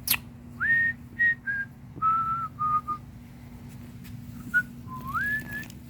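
A person whistling a short tune: about eight clean held notes, with a rising swoop near the start and another near the end.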